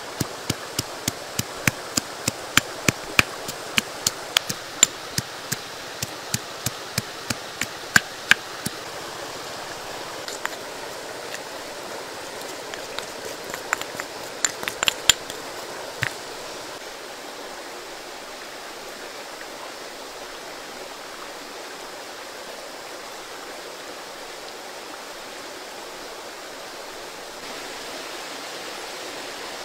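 A pestle pounding in a mortar: sharp knocks at about two to three a second, growing sparse and irregular and stopping about halfway through. Under them runs a steady, even hiss.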